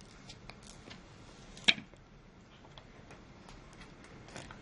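A few light clicks and taps from handling a new smartphone and its packaging, the sharpest about a second and a half in and another near the end.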